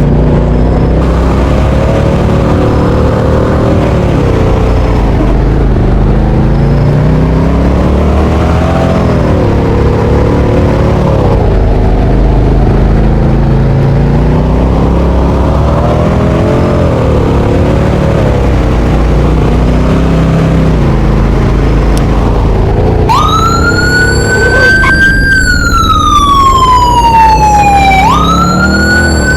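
Fire apparatus sirens over a heavy engine rumble: a lower siren slowly rising and falling, then about 23 seconds in an electronic wail cuts in, rising sharply, sliding down over about five seconds, and rising again near the end.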